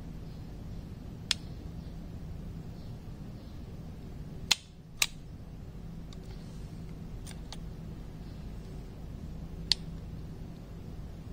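Scattered sharp clicks, about six, the loudest a pair about half a second apart near the middle, over a steady low hum.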